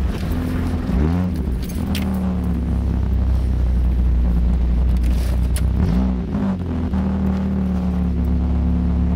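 Chevrolet Beretta engine running with no muffler, its exhaust loud and rumbling inside the cabin while driving slowly. The revs rise and drop briefly about a second in and again around six seconds, with steady running between.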